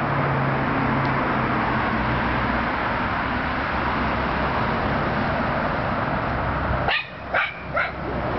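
A steady rushing noise, then near the end a dog barks three times in quick succession.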